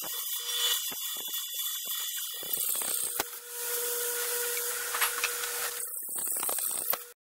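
Annular cutter in a power drill cutting a hole through steel bar: a harsh, continuous metal-on-metal scraping and chattering, with a steady tone joining about three seconds in. It cuts off suddenly near the end.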